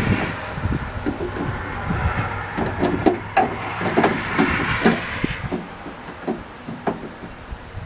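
Scattered small clicks and knocks of hands working a truck door handle and its gasket into place in the door, over a steady rushing noise that fades away about five seconds in.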